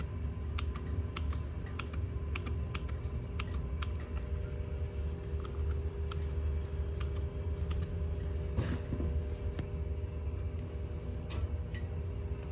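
Trigger spray bottle of soap-bubble leak-detection solution squeezed again and again, quick clicking spritzes onto gas piping, thickest at first and then more spread out, over a steady low hum.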